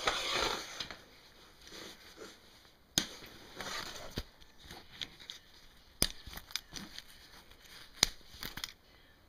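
Metal snap fasteners on a stroller seat's fabric cover being pulled open one after another, each a sharp pop, with rustling of the fabric between them.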